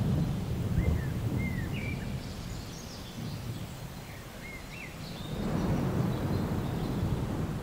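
Outdoor ambience: a low rumble that swells at the start and again about five seconds in, with a few short bird chirps in between.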